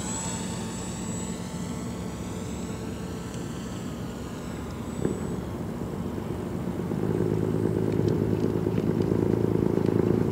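Electric motor and propeller of an RC foam plane running in flight, its pitch sweeping up and then down as the plane passes. It grows louder about seven seconds in as the plane comes in low toward the camera.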